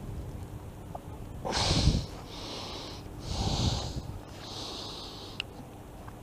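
A man breathing hard through his nose, four long breaths with the first the loudest, from the strain of working a treble hook out of his knuckle. One small click near the end.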